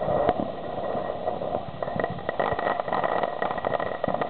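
Ground fountain fireworks hissing as they spray sparks. About two seconds in, rapid crackling joins the hiss.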